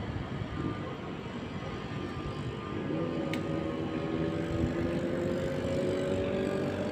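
Steady outdoor rumble of a distant engine, its note rising slowly in pitch from about three seconds in.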